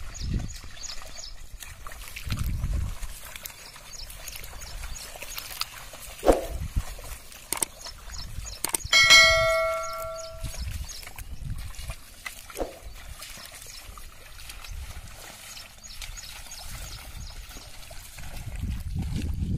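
A pair of bullocks and a wooden plough wading through a flooded paddy field, with mud and water sloshing. About nine seconds in, a click and a bright bell ding ring out for a second or so, the loudest sound: the sound effect of a subscribe-button animation.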